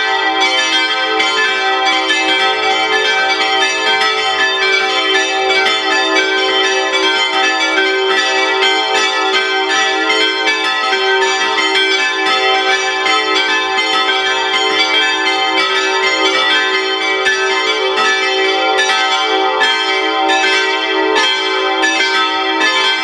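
Full peal of five swinging church bells from the Rincker foundry, tuned e'' g'' a'' c''' d''', ringing together. Their strikes fall thick and overlapping in a steady, unbroken stream, each tone ringing on under the next.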